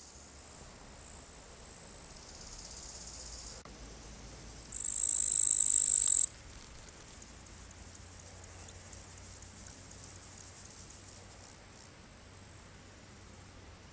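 Meadow insects stridulating, a high-pitched buzzing that shifts abruptly several times. The loudest stretch is a strong, steady high buzz about five seconds in, which stops suddenly after about a second and a half. After it comes a rapid, fast-pulsed high ticking.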